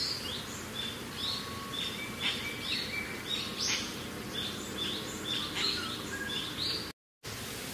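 Birds chirping, a dense run of short high chirps over a steady background hiss. Near the end the sound cuts out for a moment, and afterwards only the hiss remains.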